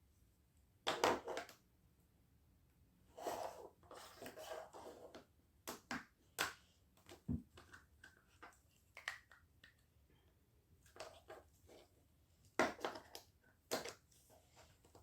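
Small toy pieces being handled and pressed together: irregular clicks and short rustles, with a cluster of handling noise a few seconds in and another near the end.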